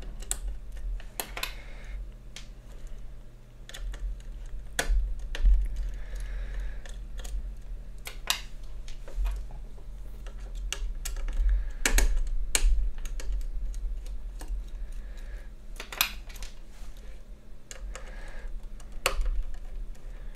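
Small screws being removed from the back of a graphics card with a precision screwdriver and set down on a wooden desk: irregular light clicks and ticks over a steady low hum.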